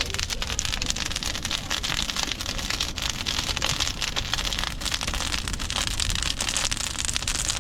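Large bonfire crackling steadily, a dense run of small snaps and pops over a low rumble.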